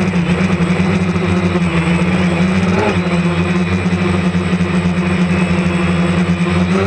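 DJI Phantom 2 Vision+ quadcopter's propellers and motors running in flight: a loud, steady buzzing hum, its pitch wavering briefly about three seconds in and again near the end as the rotor speeds change.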